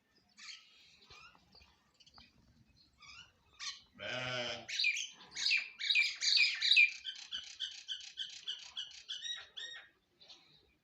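Mynas and sparrows calling: scattered faint chirps, then, about four seconds in, a short, harsh, low-pitched cry, followed at once by a fast, even run of loud chirps that lasts about five seconds and stops near the end.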